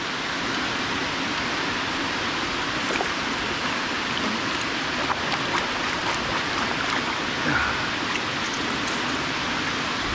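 Water pouring down a concrete dam spillway into the pool below: a steady rushing hiss, with a few faint light clicks.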